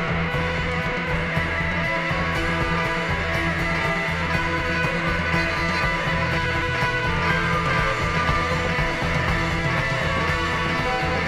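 Rock band recording: electric guitars and bass guitar playing continuously, the bass holding long notes that change every second or two.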